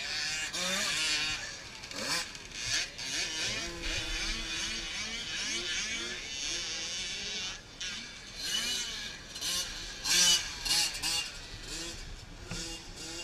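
Small 50cc youth motocross bike engines revving up and down as they ride the track, the pitch climbing in short rises over and over with each twist of the throttle and shift. The sound swells loudest about ten seconds in.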